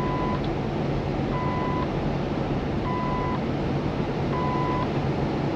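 Dashboard warning beep in a Kenworth T680's cab, one steady tone about every one and a half seconds, as the truck gathers speed downhill. Under it runs the steady drone of the truck's Paccar MX-13 diesel engine and road noise.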